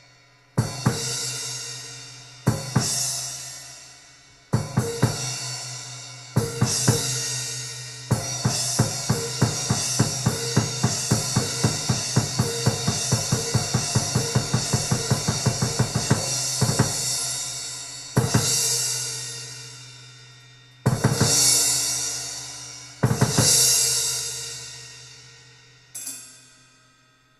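Drum kit recording played back on a JBL Control 28 passive speaker: single cymbal crashes with bass drum that ring out and fade, a fast run of drum hits at about four a second through the middle, then more crashes, the last one dying away near the end.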